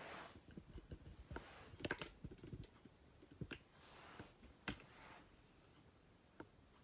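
Near silence broken by scattered faint clicks and soft rustles of handling, a few of them sharper, about two seconds in and again near the middle.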